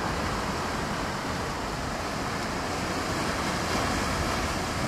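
Ocean surf and wind, a steady rushing noise.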